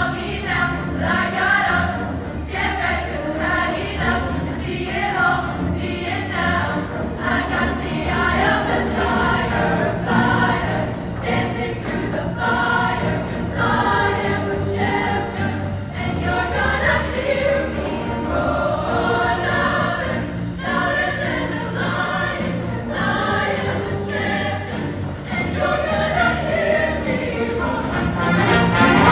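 Show choir singing in harmony over a live band, with a steady drum beat under the voices.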